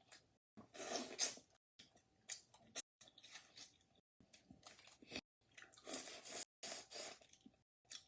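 A person chewing spicy boiled crawfish, with wet squishing and smacking sounds in short irregular bursts separated by brief gaps.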